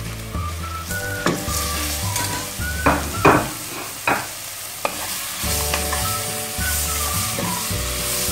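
Chopped tomatoes sizzling as they fry in the pot of spiced onion mixture, with stirring and a few sharp knocks against the pot, loudest about three seconds in. Soft background music plays underneath.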